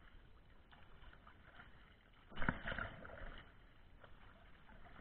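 Open-water swimmer in a wetsuit swimming front crawl, arm strokes splashing through lake water in irregular surges; the loudest splashing comes about two and a half seconds in.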